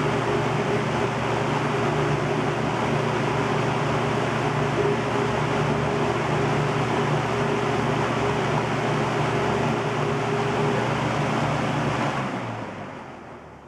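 Vintage Windsor C-14 box fan with a General Electric motor running with a steady rush of air and a low motor hum, then winding down about twelve seconds in, the hum sinking in pitch as the blades slow.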